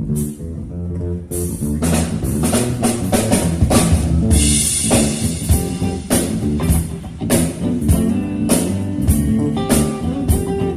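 A band playing with drum kit and guitar, a steady drum beat under bass and guitar; the drums come in fully about a second and a half in.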